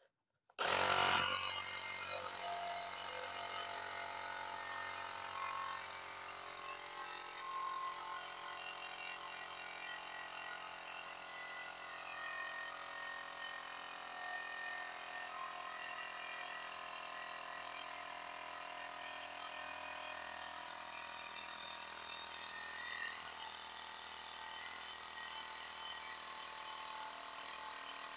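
Small 12-volt Star Avto ACP-121 portable tyre compressor switching on about half a second in with a brief surge, then running steadily as it pumps up a bicycle tyre.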